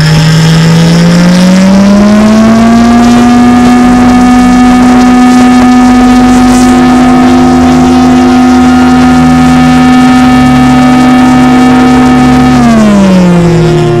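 Homemade air raid siren, a small 5 V DC motor spinning a deodorant-cap rotor, wailing loudly. Its pitch rises over the first few seconds, holds steady, then falls near the end as the rotor winds down.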